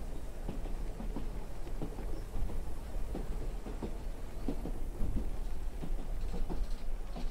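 Wind buffeting the microphone: a low, gusty rumble that rises and falls unevenly, with scattered small knocks.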